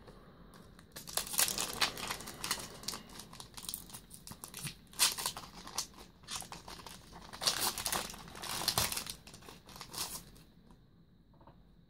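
Foil wrapper of a Yu-Gi-Oh booster pack crinkling and being torn open by hand, in irregular crackles that stop about a second before the end.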